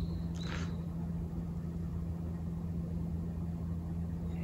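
A steady low mechanical hum, like an engine or motor running, continues throughout. A short high bird chirp sounds about half a second in.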